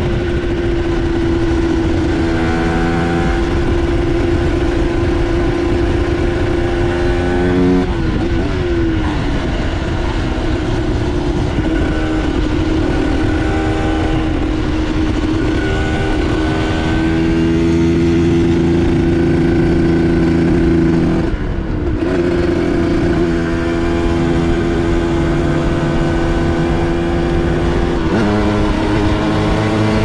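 A 2003 Aprilia MX125's 125 cc single-cylinder two-stroke engine running under way, holding a mostly steady pitch. The pitch drops briefly about eight seconds in and again just past twenty seconds as the throttle comes off, then climbs again near the end.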